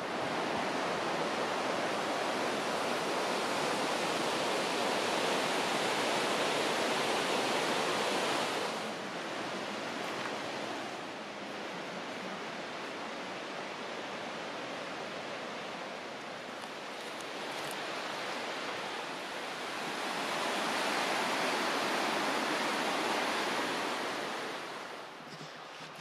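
Fast-flowing river in spate, rushing water making a steady, even noise. It is louder for the first eight seconds or so and again from about twenty seconds in, and quieter between.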